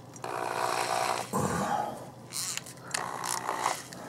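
A drill bit being tightened into a power drill's chuck by hand: a rough rasp for about a second, then softer scraping of the chuck sleeve and a few handling clicks.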